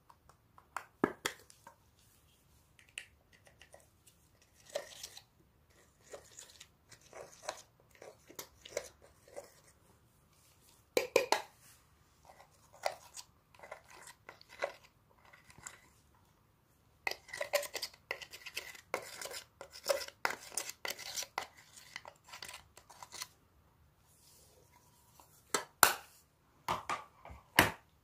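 Slime being squeezed and worked by hand, giving irregular sticky clicks, pops and crackles. The crackling thickens briefly about eleven seconds in, then again for several seconds a little past the middle.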